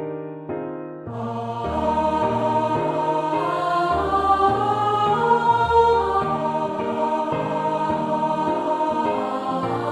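Hymn in a choral arrangement: piano chords for about the first second, then the choir enters singing in parts over the piano accompaniment.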